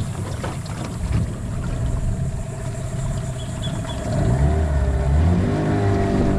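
Outboard motor on a small aluminium tinny running, with the revs picking up about four seconds in.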